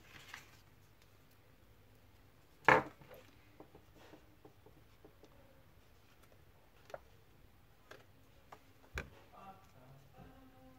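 Paper and card being handled on a cutting mat while a hole is pierced for a brad and the brad is fitted: light rustling and small taps, with one sharp knock about three seconds in, the loudest sound, and a thump about nine seconds in.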